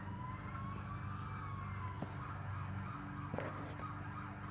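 Emergency-vehicle siren in a slow wail, rising in pitch to a peak about a second in and then gliding slowly down, over a steady low hum.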